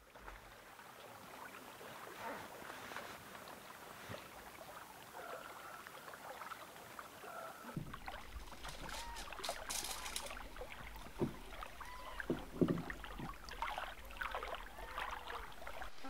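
Faint lakeshore ambience of lapping water and light wind. About halfway through a low rumble comes in, with scattered knocks and the rustle of a nylon stuff sack being handled near the end.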